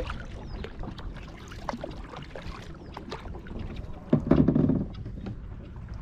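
A kayak being paddled with a double-bladed paddle: the blades dipping and splashing in calm water, with small clicks and drips, and one louder low thud about four seconds in.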